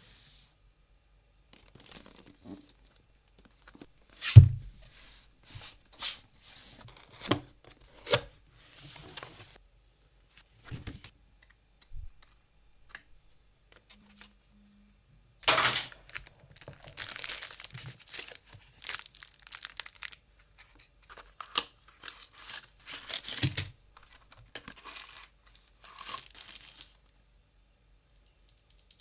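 Keyboard packaging being handled and opened: tearing and crinkling rustles with scattered knocks. A loud thump comes about four seconds in, and there is a long stretch of tearing and rustling in the second half.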